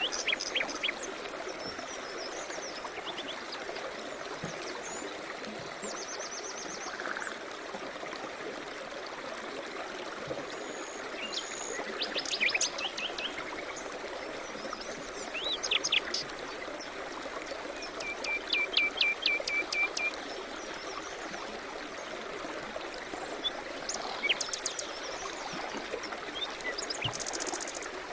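Small songbirds chirping and trilling in short, scattered phrases over a steady rush of flowing river water. About two thirds of the way in, one bird gives a quick run of about a dozen even notes.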